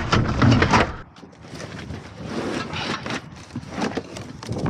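Scraping, rustling and scattered knocks of scrap being handled and shifted in a dumpster.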